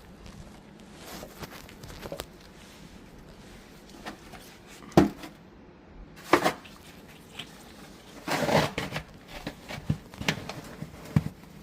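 Snow shovel digging into deep snow: irregular crunching scrapes and thumps as the snow is cut and lifted, with sharp strokes about five and six and a half seconds in and a longer run of scraping around eight to nine seconds.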